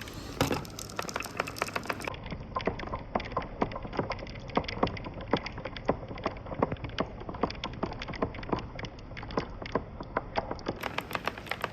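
Marbles clattering along a marble run: an irregular stream of small hard clicks and knocks, several a second.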